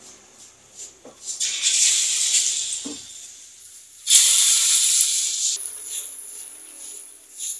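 Hot oil in an aluminium wok sizzling as spoonfuls of batter are dropped in: one surge of sizzling about a second and a half in, and a louder one that starts suddenly about four seconds in. It then settles to a lighter, steady sizzle, with a faint click or two of the spoon.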